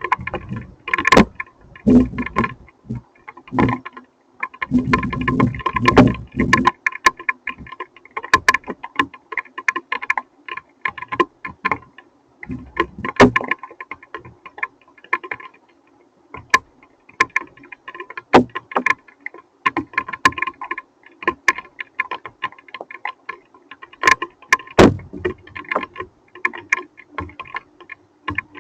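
Hailstones striking a hard surface in dense, irregular sharp taps and clicks, with bursts of low rumble about five seconds in and again near the end.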